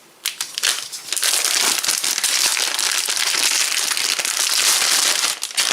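Plastic packaging of a trading-card starter pack crinkling as it is handled and torn open: a few crackles, then continuous crinkling from about a second in.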